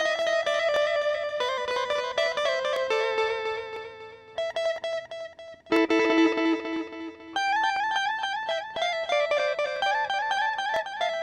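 Electric guitar played through a Zoom G1X ON multi-effects pedal with a compressor and delay patch, a single-note chicha-style melody stepping through quick picked notes. Around four seconds in it thins to a held, fading note, then the melody picks up again just before six seconds.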